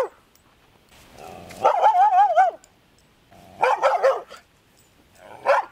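Malinois-cross dog barking aggressively in several separate outbursts, one long wavering one about two seconds in, as she lunges on her leash at a man: the reactive aggression toward strangers that this dog shows.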